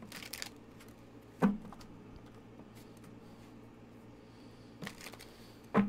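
Tarot cards being handled on a table: brief soft rustles just after the start and about five seconds in, and two sharp taps, one about a second and a half in and one near the end. A faint steady low hum runs underneath.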